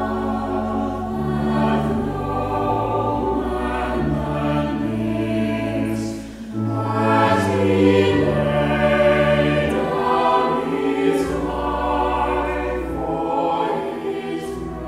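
Church choir singing a slow piece in held chords over long sustained low notes, with a brief break about six and a half seconds in.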